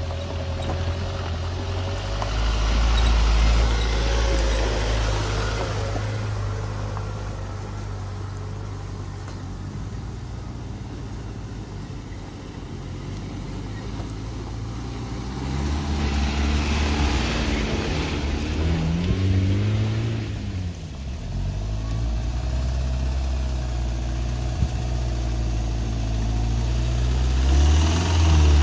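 Mahindra 4x4 SUVs, an old Thar and a Bolero among them, driving past one after another on a rocky dirt track. Their engines rev up and down as they crawl over the rough ground. The loudest passes come a few seconds in, around the middle and near the end.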